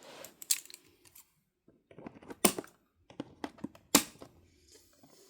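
Hard clicks and knocks from a plastic dinosaur toy and its packaging being handled, with sharp ones about half a second, two and a half and four seconds in and a quick run of smaller clicks in between.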